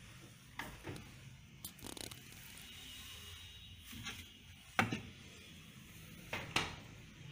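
Refrigerator door being opened and a plastic bowl of marinated chicken handled and lifted off a glass fridge shelf: a scatter of short knocks and clicks, the loudest about five seconds in, over a faint low hum.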